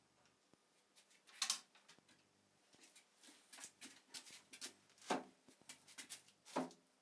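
Faint scrapes and knocks of a plywood tabletop being shifted by hand on a table saw base, in short separate rubs with the clearest about a second and a half, five and six and a half seconds in.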